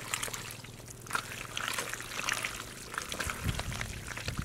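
Wet mud squelching and muddy water trickling and dripping as hands dig and scoop through a mud hole, a scatter of short, irregular squishes.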